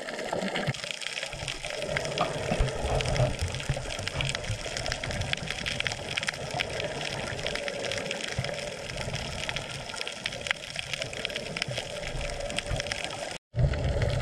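Water rushing and sloshing around a camera during snorkeling: a steady low rumble with many small crackles throughout, cut off abruptly near the end.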